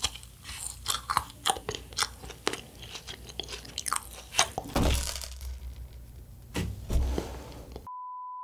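Close-miked chewing and crunching of a UFO wafer candy topped with kiwi popping boba: a quick run of crisp crackles and clicks, with a couple of low thuds about halfway through. Near the end the chewing cuts off for a steady test-tone beep of about half a second.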